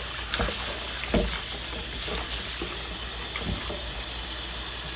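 Kitchen tap running water over herb leaves being washed, with a few soft knocks as they are handled; the water shuts off abruptly at the end.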